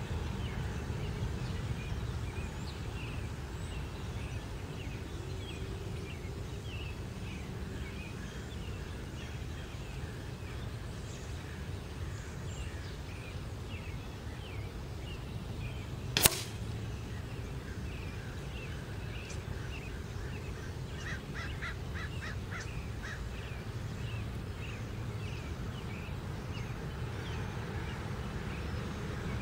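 A single sharp metallic smack about halfway through: an air-rifle pellet striking a thin aluminium-can target, which a new hole in the can marks as a hit. Birds chirp throughout, with a rapid trill a few seconds after the hit.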